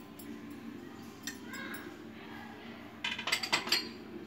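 Metal spoon clinking against a bowl while spice powder is tipped in: a single tap about a second in, then a quick run of clinks about three seconds in.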